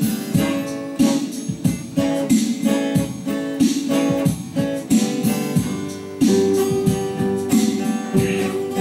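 Twelve-string acoustic guitar strummed in a steady rhythm of chords, with a change of chord about six seconds in.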